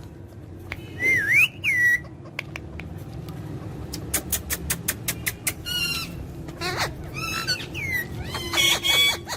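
Pet parrot whistling and calling: a whistle that swoops up and down about a second in, a quick run of clicks around the middle, then several short pitched calls near the end.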